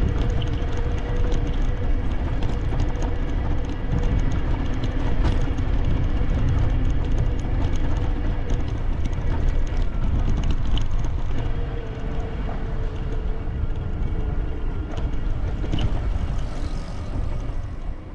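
Steady low rumble of wind buffeting the microphone while moving along a brick-paved street, with a faint steady hum underneath; it eases a little in the last few seconds.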